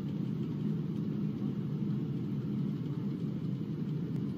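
Steady low rumble of an airliner in flight, heard from inside the cabin beside a wing engine that has failed, its cowling torn away and fire in the engine core.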